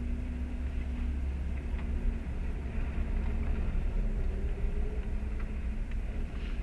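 Car engine idling steadily with a low hum, heard from inside the stationary car's cabin.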